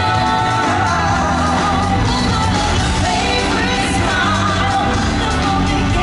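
Live pop music over a concert PA: female vocals sung into handheld microphones over a steady bass beat.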